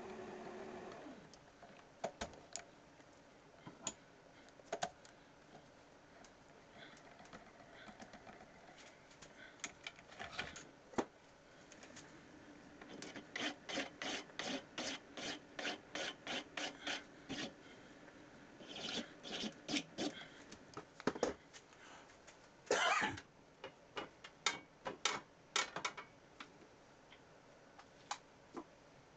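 Hand work on brass bar stock held in a small lathe's chuck: a steady hum dies away about a second in, then come clicks and scraping, rasping strokes. In the middle there is a regular run of about three strokes a second, and one longer, louder scrape comes about two-thirds of the way through.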